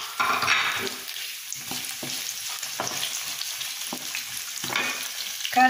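Shallots and green chillies sizzling in hot oil in a non-stick kadai, stirred with a wooden spatula that scrapes against the pan several times.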